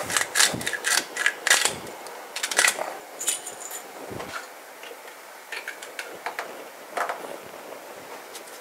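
Quick clicks and small rattles of a salt container being opened and salt sprinkled over a steel pot of water, thick in the first three seconds and sparser after. There is a brief high squeak about three seconds in.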